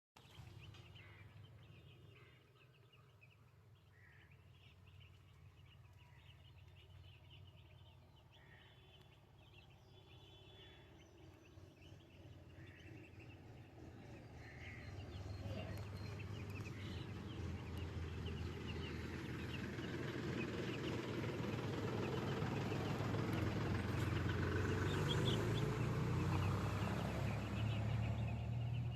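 A flock of chickens calling: scattered short calls at first, then a dense chorus of many overlapping calls that grows louder about halfway through, over a low steady hum.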